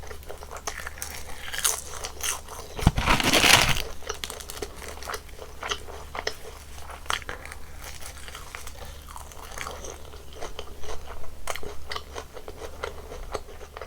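Close-miked eating sounds: a loud crunchy bite about three seconds in, then steady chewing with many small wet mouth clicks.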